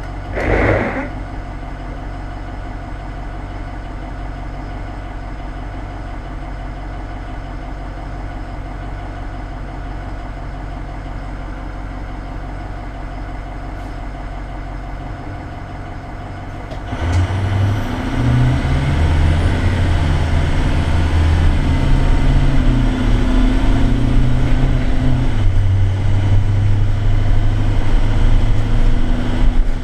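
School bus's Navistar VT365 V8 diesel idling while stopped, with a brief loud burst about half a second in. About 17 seconds in the bus pulls away: the engine revs up and louder, its pitch rising and dropping several times as the Allison six-speed automatic upshifts.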